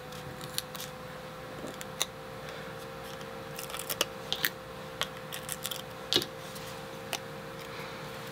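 Small crackles and clicks of adhesive foam squares and a paper sticker being peeled from their backing and handled by hand, busiest in the middle, over a steady faint hum.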